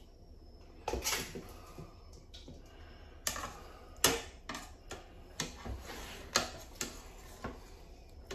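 A metal scooping utensil knocking and clinking against a cooking pot as cooked carrots and sweet potatoes are scooped out of the rice and drained. There are about nine light knocks, irregularly spaced, most of them in the second half.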